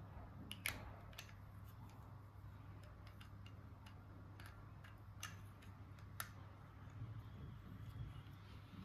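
Faint, irregular light clicks and taps from small toy parts and packaging being handled, over a low steady hum.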